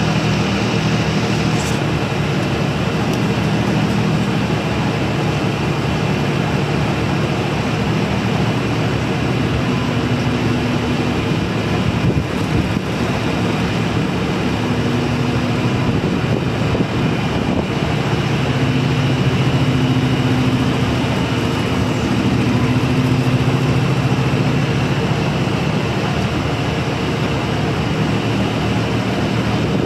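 1998 IHI 28J mini excavator's diesel engine running steadily while the hydraulics swing the upper structure and work the boom and arm. The engine note shifts several times as the hydraulics take load.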